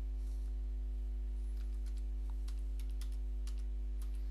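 Computer keyboard keystrokes typing a short word: a quick run of about a dozen light clicks starting about a second and a half in, over a steady low hum.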